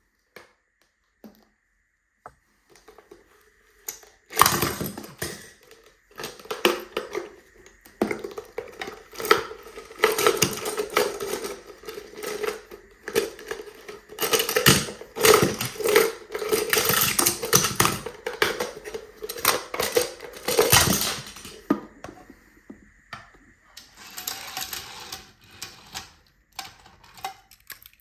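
Small hard plastic toys clattering and knocking together in quick runs of clicks as they are handled, busiest from about four seconds in until near twenty-two seconds, then a softer flurry of clicks.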